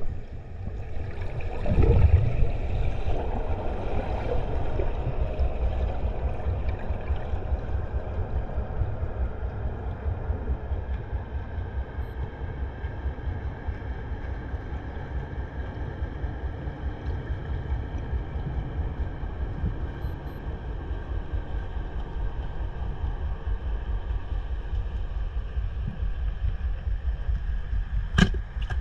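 Underwater noise picked up by an action camera in its waterproof housing while a freediver swims down: a steady low rumble of water moving past the housing, a louder rush of water about two seconds in, and a few sharp clicks near the end.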